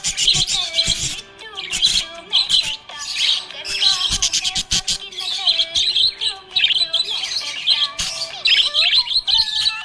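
Budgerigars chirping in dense, rapid clusters of high chirps, over background music.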